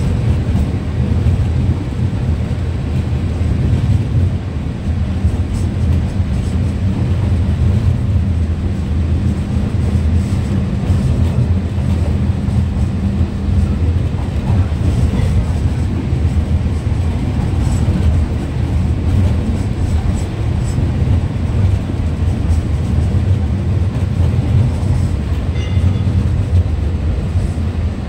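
Alishan Forest Railway train running, heard from inside the passenger car: a steady low rumble with a droning hum and occasional light clicks.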